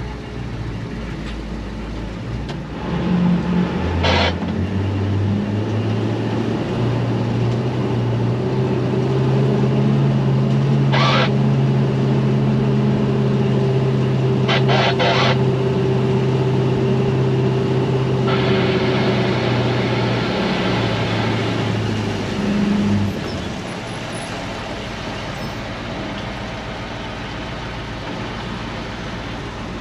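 Non-turbo 7.3 IDI diesel of an International 4600 dump truck revving up from idle, holding a steady higher speed for about eighteen seconds, then dropping back to idle. A few short sharp sounds and a brief hiss come over it.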